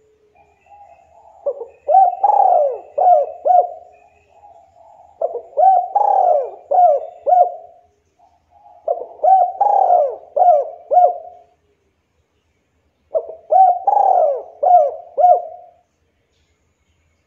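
Spotted dove (local Javan derkuku) cooing: four song phrases a few seconds apart, each a quick run of four or five coos, with soft low notes before the first phrases.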